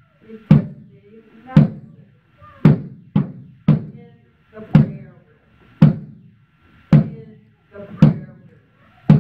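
Wooden barrel drum with a skin head struck with a stick in a slow, steady beat, about one hit a second, with a couple of quicker extra strokes about three seconds in.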